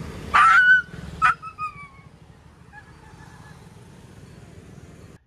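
Injured dog yelping while held and handled, in pain from a large open wound on her side: one loud high cry, then two shorter cries falling in pitch, over low traffic hum.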